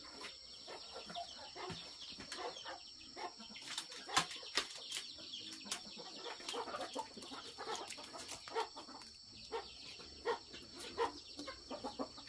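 Chickens clucking, over scattered faint knocks and scrapes of a small metal pot scooping thick mash out of a large metal cooking pot.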